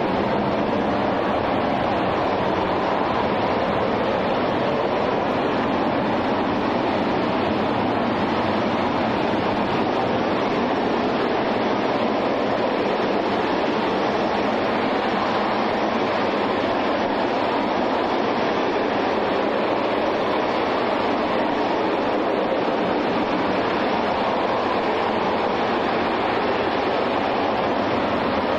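RS-25 rocket engine, the former Space Shuttle main engine burning liquid hydrogen and liquid oxygen, firing in a static test: a loud, steady rushing noise that holds at one level without change.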